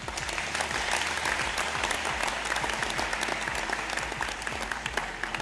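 Audience applauding: a dense patter of many hands clapping that starts suddenly and eases off near the end.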